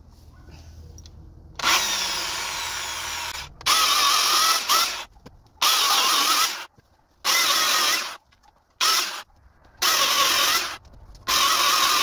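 Handheld electric power tool cutting branches, run in seven short bursts of about a second each with brief pauses. The first burst, about one and a half seconds in, is the longest.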